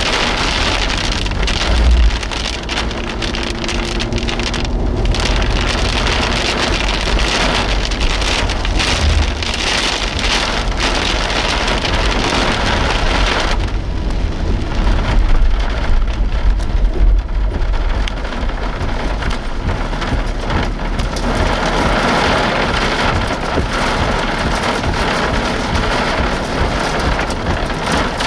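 Rain pattering steadily on a vehicle's windshield and roof, heard from inside the cab, over a low rumble.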